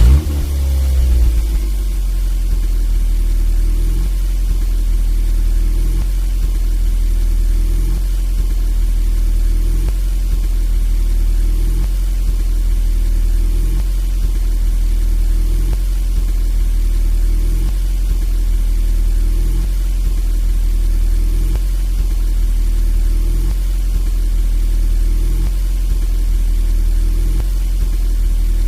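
Car engine just after starting: it flares briefly in the first second, then settles into a steady idle.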